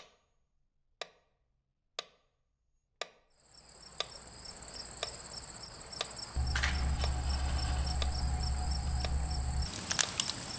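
Three soft clicks a second apart, then crickets chirping steadily in a high, fine pulsing chirr, with a low rumble underneath for about three seconds in the middle.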